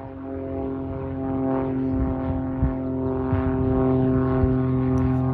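Single-engine propeller plane at full takeoff power: a steady engine-and-propeller drone that grows louder over the first couple of seconds as the plane rolls down the runway and lifts off.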